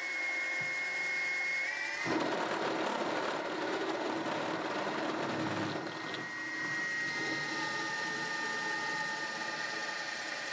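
Mini milling machine running with a steady high whine while a step drill bores into half-inch MDF. The drill bites about two seconds in, adding a rough cutting noise that is strongest for the next few seconds and then eases. The whine drops slightly in pitch under the load.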